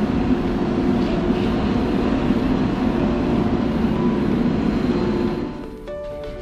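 Loud, steady rumble of a train at a railway station platform, which drops off suddenly about five and a half seconds in.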